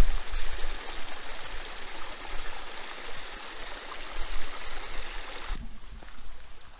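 Small stream running steadily over a rocky cascade. The rushing cuts off abruptly about five and a half seconds in.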